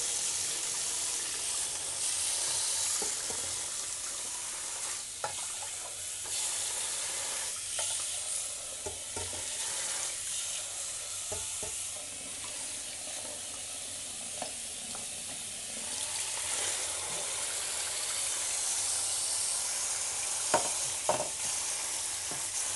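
Cold tap water running into a stainless steel colander in a sink while cooked tapioca pearls are poured in from a pot and stirred. A few sharp clinks, the loudest two near the end.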